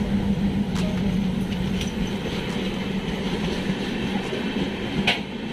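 Passenger train pulling slowly into the station on the adjacent track. A diesel locomotive's engine hums steadily as it passes, then the coaches roll by with scattered wheel clicks over the rail joints and a sharper click about five seconds in.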